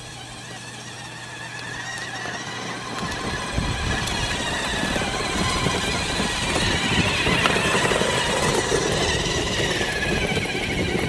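Ryder Super Duty battery-powered ride-on toy truck driving in its low speed setting: the electric drive motors and gearboxes whine steadily over a rumble from the wheels rolling on the ground, growing louder over the first few seconds.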